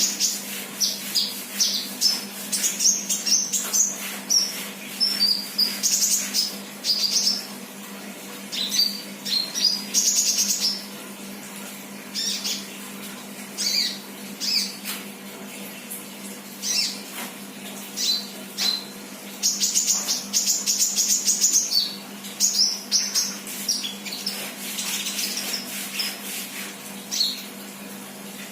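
A sunbird (the bird Indonesian keepers call 'kolibri') singing in bursts of rapid, high-pitched chirping phrases with short pauses between them, over a faint steady low hum.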